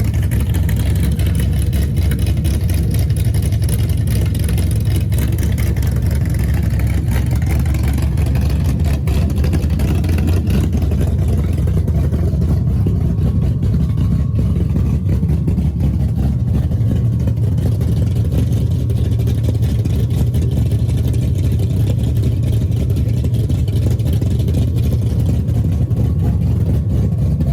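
Big-block Chevrolet V8 engine running at a steady speed, a low, even engine note with no revving.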